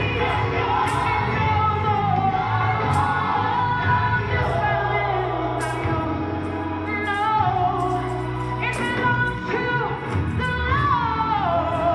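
Recorded gospel song with a woman singing a wavering melody over held bass notes.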